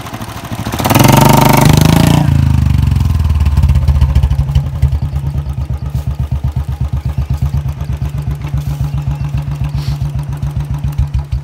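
Royal Enfield Bullet single-cylinder motorcycle engine revving hard for about a second, then settling back to an even, thumping idle.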